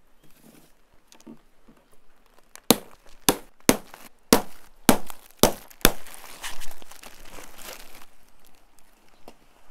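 Plastic strapping bands around a baled bundle of clothes being cut, a quick series of about seven sharp snaps, followed by the crinkle of the plastic wrap being pulled loose.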